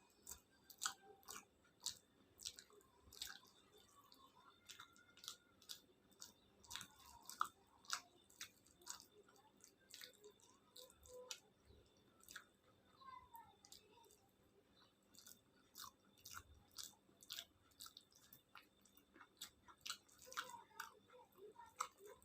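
Close-miked eating sounds of a person eating khichuri with fried vegetables and egg: wet chewing with many sharp mouth clicks and smacks, several a second, at an uneven pace.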